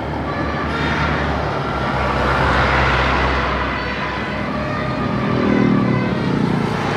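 Road traffic: a vehicle passes about two to three seconds in and another swells up near the end, with faint steady multi-tone horn notes underneath.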